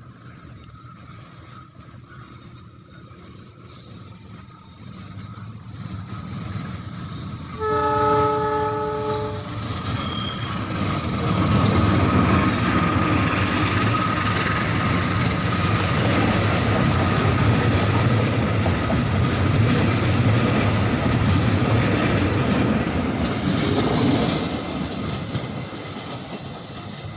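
A train approaching and passing: it sounds one horn blast of under two seconds about eight seconds in, then the cars rumble past loudly with wheels clattering on the rails, fading away near the end.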